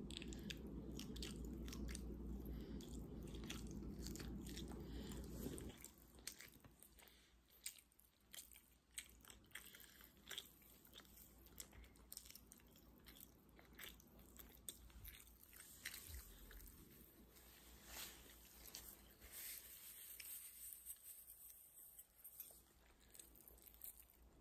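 Close-up chewing and biting on a pork chop: many short wet mouth clicks and smacks. A low steady hum underneath cuts off suddenly about six seconds in.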